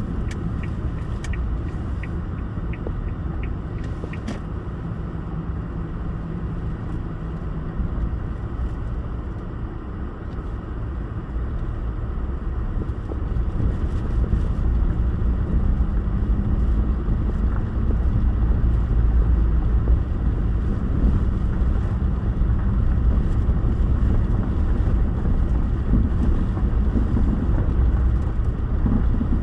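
Suzuki Solio heard from inside the cabin: a steady low engine and road rumble. A light regular ticking, about two a second, stops about four seconds in.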